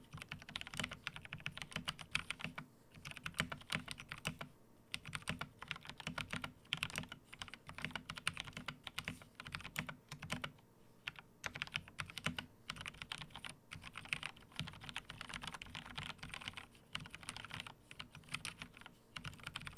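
Akko 3087 mechanical keyboard being typed on in a fast, continuous run of keystrokes, broken by a few brief pauses. Its switches have been hand-lubed by scraping lube onto them with the switches still soldered in, and the result is meant to sound close to properly lubed switches.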